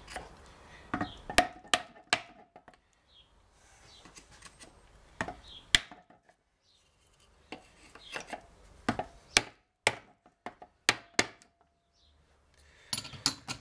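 Hammer blows on a wooden block held against a Peugeot BE4 gearbox casing, an attempt to knock the differential loose from the bellhousing. Sharp wooden knocks come in short groups of two or three with pauses between, and the parts do not come apart.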